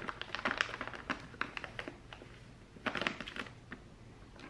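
Foil-laminate bag crinkling and crackling as a handheld mini bag sealer is pressed and drawn along its top edge to heat-seal it: a quick run of irregular small clicks, coming in two spells with a short lull between.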